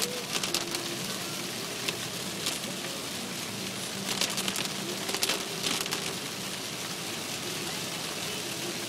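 Heavy rain beating on a car's windshield and roof, heard from inside the moving car, a steady downpour with sharp spatters of drops at irregular moments.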